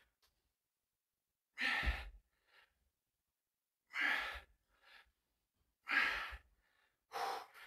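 A man breathing hard under the strain of holding a side plank: four forceful exhales, like sighs, about every two seconds, each followed by a short, fainter breath.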